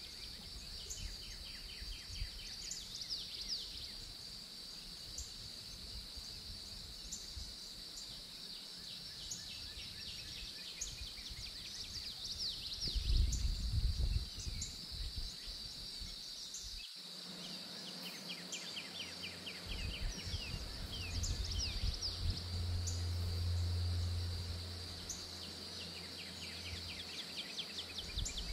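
Outdoor ambience of a steady high-pitched insect drone, with repeated short, rapid trills, likely birds. A low rumble swells briefly twice.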